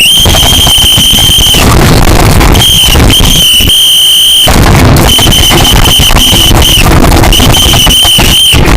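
Piercing high-pitched electronic beeping, very loud and heavily distorted, in long beeps of one to two seconds with short gaps between them.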